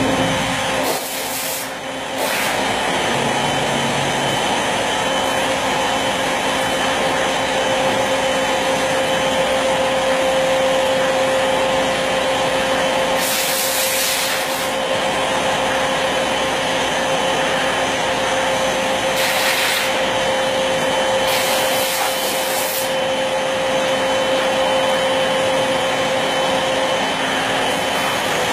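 CNC wood router running with a steady whine over a dense mechanical rush. Several times it has spells of brighter hissing lasting a second or two, and the whine drops out near the end.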